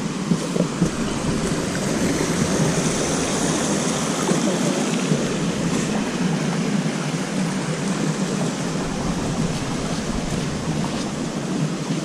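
Water running in a shallow forest stream: a steady rushing noise with no pauses.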